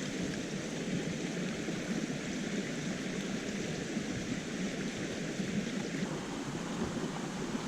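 Creek water flowing with a steady rush.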